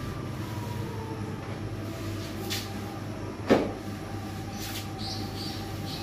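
Steady low hum and rumble, with one sharp knock about three and a half seconds in and a few faint scrapes soon after.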